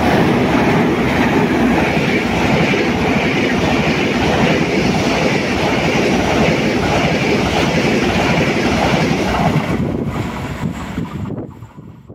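Frecciarossa high-speed train passing close by at speed: a loud, steady rush of wheels on rail, fading away over the last couple of seconds as the train recedes.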